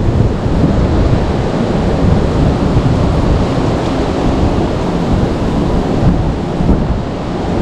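Steady rushing of fast-flowing river water close to the microphone, with a heavy low rumble.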